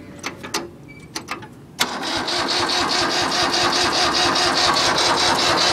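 A few light clicks, then about two seconds in a tractor's starter begins cranking the cold engine with a fast, even, rhythmic churn that continues, an attempt to start an engine that has sat unused for about a month.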